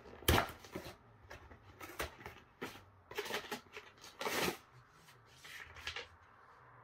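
Wrapping paper and tissue paper rustling and tearing in a string of short crinkly bursts as a present is unwrapped by hand.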